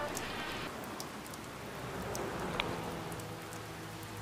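Steady rain patter with scattered faint drop ticks, and a low hum coming in about halfway through.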